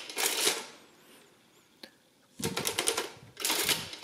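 Olivetti Summa 15 mechanical adding machine cycling under its hand lever, printing the total and clearing its register. There is a burst of clatter at the start, a single click near the middle, then a longer, louder run of clatter in the last second and a half.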